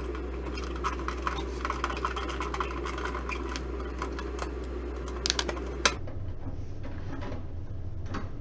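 Electric screwdriver running steadily with a low hum and rapid clicking and rattling, backing screws out of a toaster oven's sheet-metal case; it stops about six seconds in, leaving a few quieter clicks of metal being handled.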